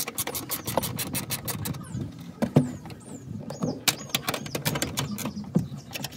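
Ratcheting box-end wrench clicking in quick, uneven runs of several clicks a second as it turns the top-mount nut on a rear strut tower.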